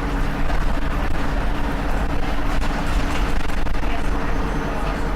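Volvo B7RLE bus's six-cylinder diesel engine running steadily, a low drone with a few light clicks and rattles over it.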